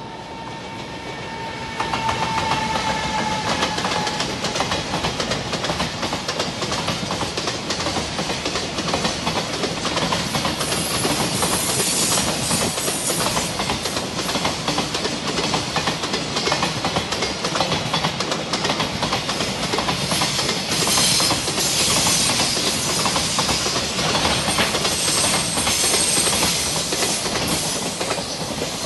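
A JR Freight container train passing close by, headed by an EF210 electric locomotive: loudness builds over the first two seconds as the locomotive goes by, with a faint steady tone early on. The container flat wagons then roll past with a continuous rumble and clickety-clack of wheels over rail joints.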